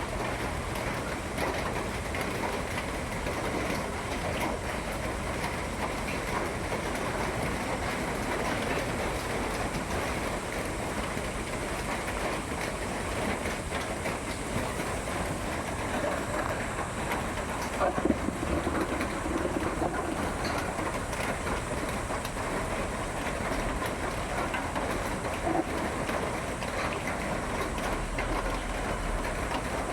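Steady, dense noise of rain falling, with a couple of brief louder knocks, one about two-thirds of the way through.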